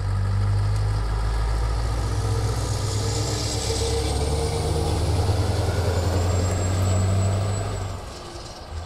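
Scania truck with a box semi-trailer driving past close by: a steady low diesel hum with tyre and road noise that swells as it passes, and a thin high whine late in the pass. The sound drops away about eight seconds in.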